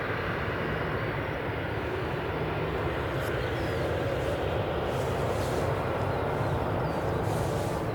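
Jet airliner engines heard at a distance: a steady, even rumble with a low hum.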